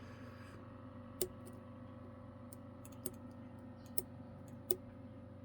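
Sharp, isolated clicks, four distinct ones about a second apart plus a few fainter ones, from a lock pick working and setting the pins inside a Godrej Scorpio padlock. A steady low hum runs underneath.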